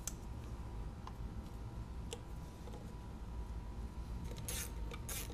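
Small clicks and handling noises as a fuel rail with its injectors is fitted onto an engine by gloved hands: a few faint ticks, then a quicker run of sharper clicks near the end.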